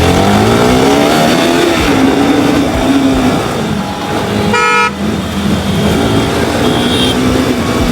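Yamaha RS200 single-cylinder engine pulling away, its pitch rising over the first two seconds, then running steady. A vehicle horn gives one short toot a little over halfway through.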